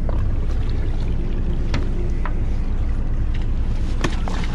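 Fishing boat's engine running with a steady low drone, water splashing at the hull, and a few sharp knocks.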